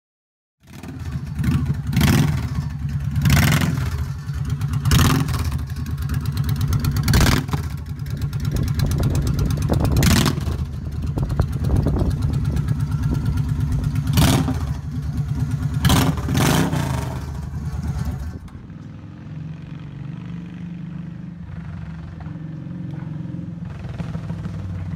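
Honda Shadow 750 V-twin engine running through a custom exhaust made from a Shadow 750 ACE head pipe, idling with about eight sharp throttle blips. About three-quarters of the way in the sound drops to a quieter, steadier run as the bike moves off down the street.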